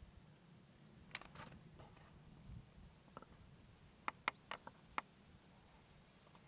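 Near silence with light handling noise from a handheld camcorder: a low rumble and a few small sharp clicks, five of them in quick succession about four seconds in.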